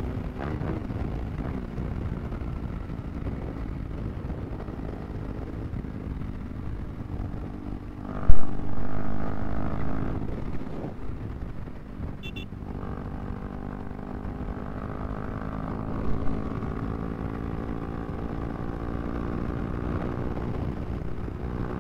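KTM RC 390's single-cylinder engine running while riding, heard from the rider's seat with wind noise, its pitch shifting about eight and twelve seconds in. A sharp thump about eight seconds in is the loudest sound, and a brief high beep comes a few seconds later.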